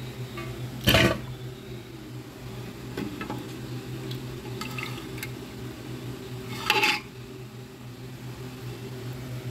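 Steel ladle clanking against the pressure cooker pot and sloshing through broth as cooked beef trotters are scooped out. Two loud metal knocks about a second in and near seven seconds, with smaller taps between, over a steady low hum.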